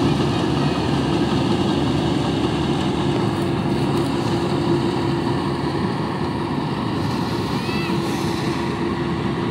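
Combine harvester cutting rice, its engine and machinery running at a steady load with a constant hum.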